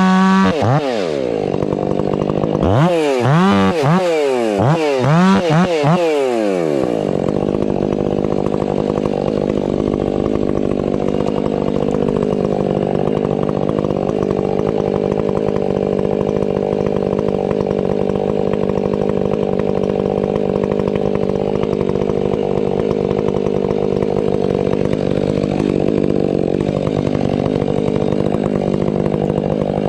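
Stihl 500i fuel-injected two-stroke chainsaw revved up and down several times over the first several seconds, then held at a steady high speed in a long continuous cut through wood, with throttle swings again near the end.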